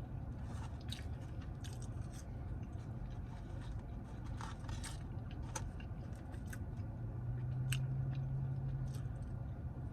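A person chewing and biting fast food close to the microphone: small wet clicks and crunches scattered throughout. A steady low hum runs underneath, growing a little stronger in the later seconds.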